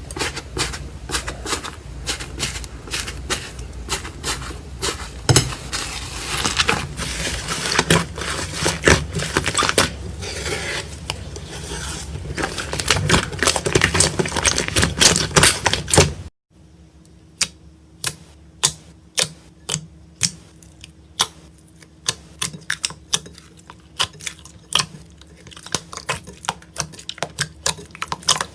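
Slime being played with: a dense run of crackling clicks and pops, which cuts about sixteen seconds in to quieter, sparser single clicks and pops.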